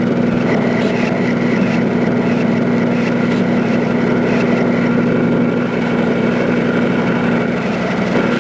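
Factory machinery running steadily: a loud, constant low hum with a broad mechanical whir over it.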